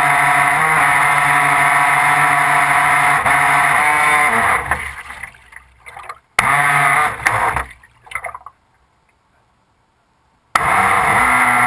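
Stealth RC boat's motor heard from on board: a steady whine that cuts off about four and a half seconds in, with two short blips of throttle. After a couple of seconds of near silence the motor comes back abruptly, its pitch rising as it spins up near the end.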